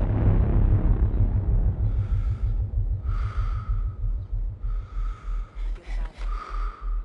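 A man's tense breaths, short and breathy, come about once a second over a low pulsing throb of about two to three beats a second. A heavy rumble at the start fades away over the first two seconds.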